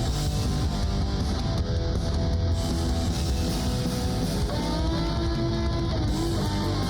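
Background music: guitar-driven rock with electric guitar over a steady bass.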